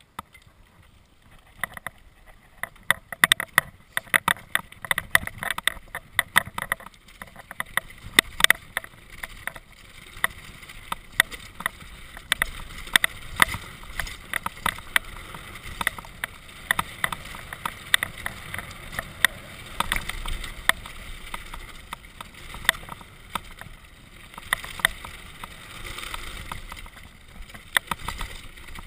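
Mountain bike rattling and clattering as it rides downhill over a rough gravel and rock trail, tyres crunching under a steady rumble. Sharp knocks come thick and fast in the first several seconds, then the ride settles into a steadier rumble with scattered clatters.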